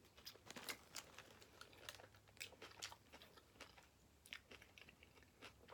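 A person chewing a Subway BMT sub sandwich (Black Forest ham, salami and pepperoni) close to the microphone: faint, irregular wet mouth clicks and soft crunches.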